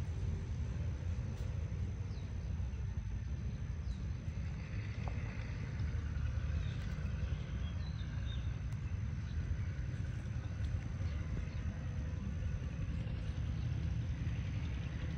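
Steady low outdoor background rumble, with a faint, thin high steady tone that stops near the end.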